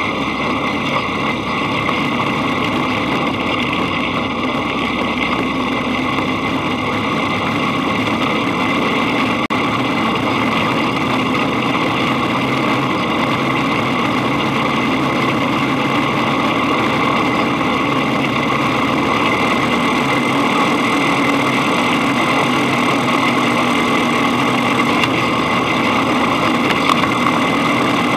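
Dune buggy engine running steadily as the buggy drives along a rough dirt track, heard from the front of the buggy, a little louder in the latter part.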